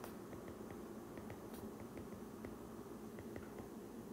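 Faint, irregular light ticks of a stylus tapping and sliding on a tablet's glass screen while words are handwritten, over a steady low room hum.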